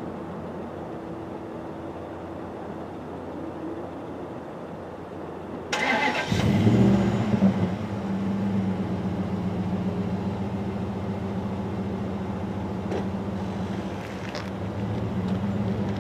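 A car engine is cranked and catches about six seconds in, revs briefly, then settles into a steady idle. Before that, only a low steady rumble is heard.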